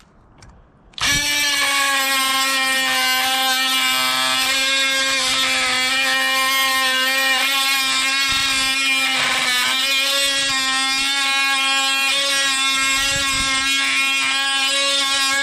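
DeWalt DCS356 brushless oscillating multi-tool running at a steady pitch with a buzzing, many-toned whine, its blade held against a grade 5 steel bolt that it makes little headway on. It starts about a second in and cuts off near the end.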